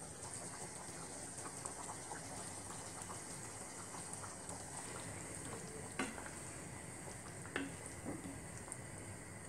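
Thick curry gravy simmering quietly in a pan while boiled eggs are slipped in and stirred through with a wooden spatula, giving soft wet stirring sounds. Two light knocks come about six and seven and a half seconds in.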